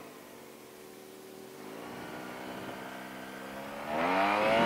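Motor scooter engine accelerating: its pitch climbs gradually, then revs up sharply and loudly near the end.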